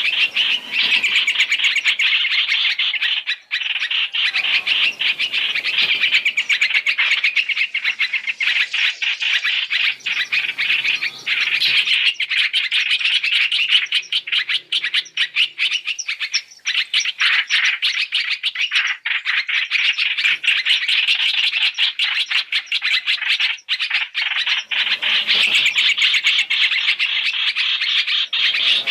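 Continuous, rapid, overlapping chirping and chattering calls of the bird known in Vietnamese as hoành hoạch or trao trảo, a recorded 3-in-1 lure call mixing several of its calls.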